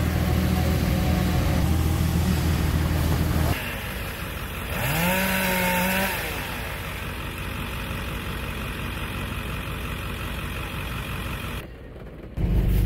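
Pickup truck cab noise: a steady low engine and road rumble while driving slowly, cutting abruptly to a quieter background with a short rising, then held, tone about five seconds in. The cab rumble comes back just before the end.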